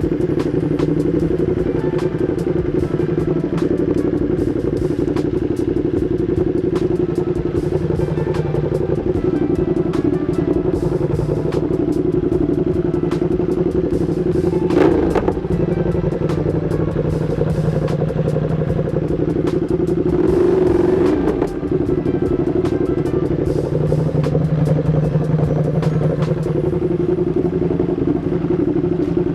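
Ducati Streetfighter V2's V-twin engine breathing through an Austin Racing exhaust, running at low, steady revs with light ticking over it; the revs swell briefly about twenty seconds in.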